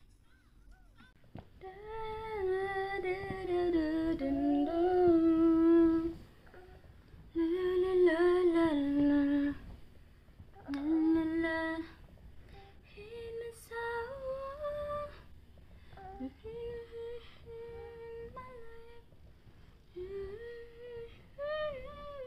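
A woman humming a slow lullaby to lull a baby to sleep: drawn-out notes in three louder phrases over the first half, then softer, shorter phrases.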